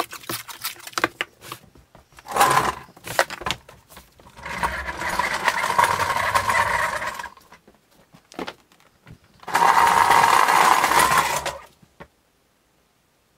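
Plastic stretch wrap being pulled off a handheld dispenser roll around a stack of stretcher frames, in two long rattling pulls after a short first one, with rustling and clicks of the film being handled.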